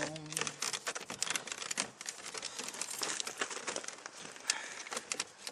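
Hard plastic door-panel trim being handled and worked into place by hand: a dense, irregular run of small clicks and crinkling.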